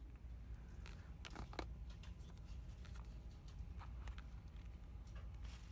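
Dollar-store ambience: a steady low hum with scattered faint clicks and rustles of things being handled.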